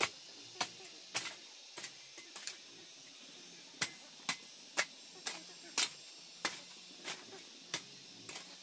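A series of sharp knocks from a hand tool striking, about two a second, with a pause of over a second about a third of the way in.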